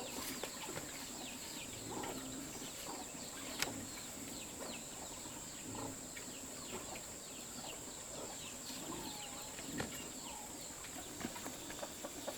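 Chickens: many short, falling peeps with the odd cluck and a few sharp taps, over a steady high-pitched hum.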